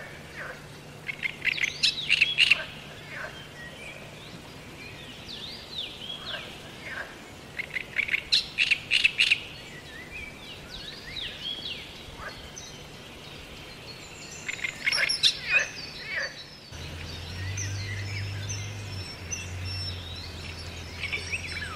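Wild birds calling and chirping: three bursts of rapid, sharp high notes about two, eight and fifteen seconds in, with softer scattered chirps between. A low steady hum comes in near the end.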